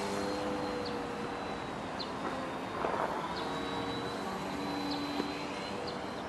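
Radio-controlled Yak-55 aerobatic model airplane flying overhead, its motor and propeller droning at a distance. The pitch dips for a while about halfway, then picks up again.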